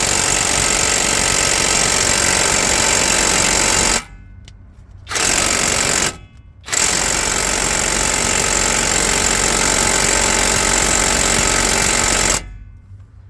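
Alloyman cordless impact wrench hammering on a 36 mm axle nut in three long bursts: the first runs about four seconds, a short one follows after a brief pause, and the last runs about six seconds after another pause.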